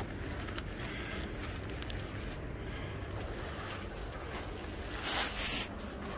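Footsteps rustling through a thick layer of fallen leaves over loose rock, with a low rumble of wind on the phone's microphone; a louder rustle about five seconds in.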